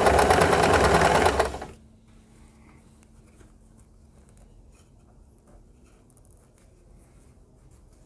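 Domestic sewing machine stitching in one short, fast run through layered fabric, stopping about a second and a half in.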